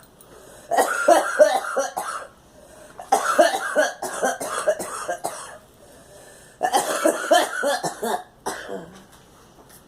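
A girl coughing in three fits a second or so apart, each a quick run of several coughs lasting one to two seconds.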